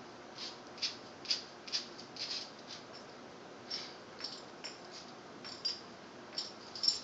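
A dog sniffing and mouthing at a cockroach on the floor: a dozen or so short, quiet clicks and ticks at irregular intervals.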